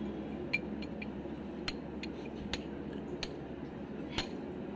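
Light metal-on-metal taps, roughly one a second, as a steel drift is struck against a gear on the shaft of a Mahindra Bolero Maxitruck gearbox to drive the gear off.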